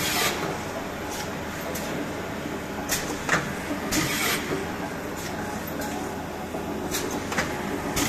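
Automatic dry offset pail-printing machine running with a steady mechanical drone, broken by a string of sharp clicks and short hisses at uneven intervals, the longest about four seconds in.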